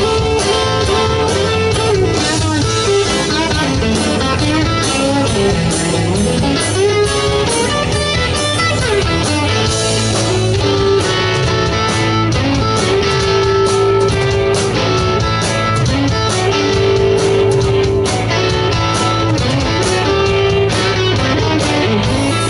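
Live blues-rock band playing an instrumental break: a Telecaster-style electric guitar plays a lead solo whose notes bend in pitch, over bass and drums.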